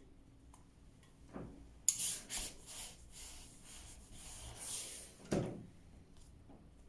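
A clothes iron pressing folded silk on a cardboard board. It comes down with a knock, then gives about three seconds of hissing, scraping rub as it is pressed and moved, and there is a second, louder knock near the end.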